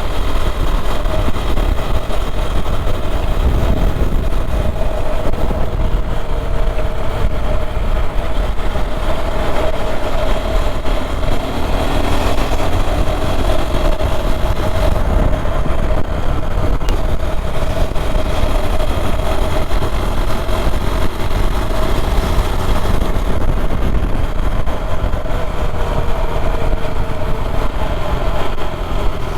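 KTM Duke 390's single-cylinder engine running steadily at cruising speed, with heavy low wind rush on the helmet-mounted microphone.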